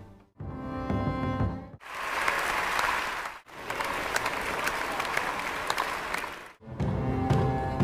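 Applause from a room of people clapping, in two stretches split by a brief cut, framed by music at the start and near the end.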